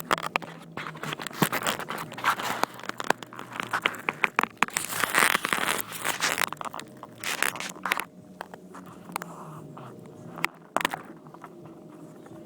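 Close handling noise on a phone's microphone: dense clicks, scrapes and crackling rustle for most of the first eight seconds, then a few single clicks.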